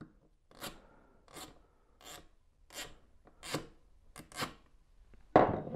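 A stripped Phillips wood screw, already broken loose, being turned out of a wooden board by hand with a Lisle Mortorq bit: a short rasping scrape with each twist, about one every 0.7 seconds, then one louder sound near the end.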